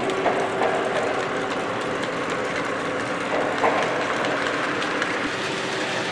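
Lionel O-scale model freight train rolling past on three-rail track: a steady rumble and clatter from the cars' wheels, with brief louder swells about a third of a second and three and a half seconds in.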